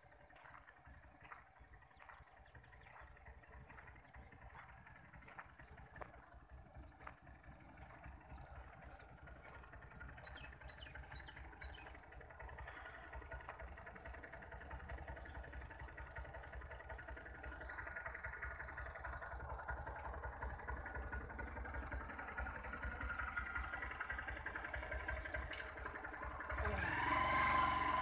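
Motor scooter engine running, getting steadily louder as it draws close, with a sudden jump in loudness near the end.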